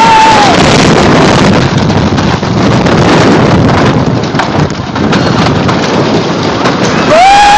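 Twister II wooden roller coaster train running along its wooden track, a loud, steady rush of rattle and wind noise on the onboard microphone. A rider's scream trails off just after the start, and another rider starts screaming near the end.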